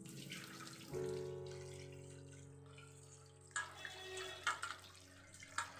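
Tap water running and splashing as hands rub raw chicken pieces in a steel bowl in a sink, with a few sharp knocks and splashes in the second half. Soft background music with long held chords plays throughout.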